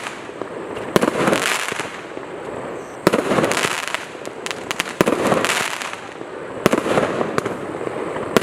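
A 34-shot firework battery firing in sequence: a sharp report about every two seconds, each followed by about a second of hissing, crackling noise, with scattered small pops in between.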